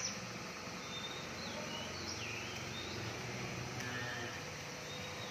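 Faint, short chirps of small birds, a handful of falling notes, over a steady low background noise.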